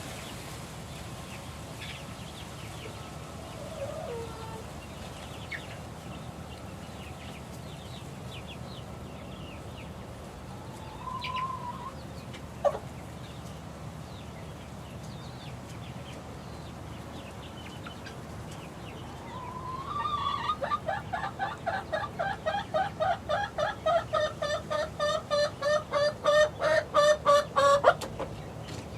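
Young chickens in a coop: soft scattered peeps and a few short calls, then about two-thirds of the way through a loud run of rapid repeated clucks, three to four a second and speeding up, that stops abruptly.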